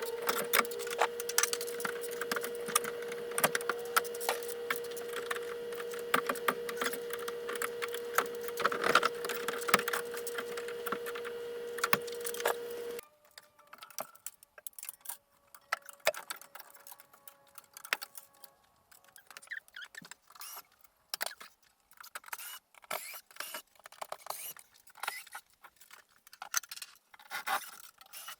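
Thin metal drop-ceiling grid and ceiling tiles being worked loose and pulled down, with many light clinks, rattles and knocks. A steady hum runs under the first half and cuts off suddenly about halfway through, leaving sparser clinking and rustling.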